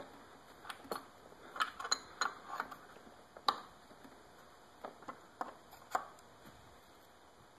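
An open-end wrench clicking and tapping on the adjuster nut atop a motorcycle fork cap as it is turned down a little at a time, bringing its height toward the 14 mm factory setting. Scattered sharp metal clicks, the loudest about halfway through, stopping about six seconds in.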